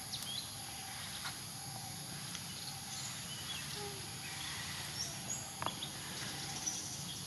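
Steady outdoor ambience: a constant high insect drone over a background hiss, with a few faint short chirps and light clicks scattered through.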